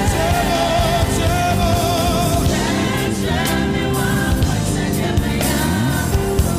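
Gospel worship music: singing over band accompaniment with drums. The voice holds wavering notes in the first half.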